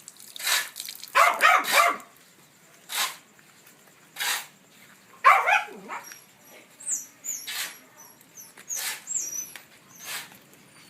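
Puppies barking: about ten short, sharp barks scattered unevenly, several bunched together near the start and again about five seconds in.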